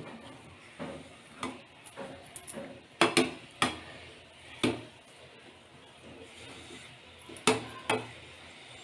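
Metal spatula scraping and knocking against a metal kadai while thick rava kichadi is stirred and patted flat: a scatter of irregular clinks and scrapes, the loudest a little after three seconds in and again about seven and a half seconds in.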